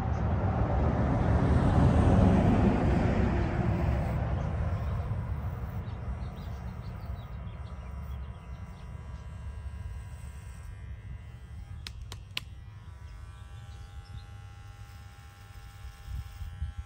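A passing vehicle's noise swells and then fades over the first several seconds. About twelve seconds in come two sharp clicks, followed by a Nova electric hair clipper buzzing steadily.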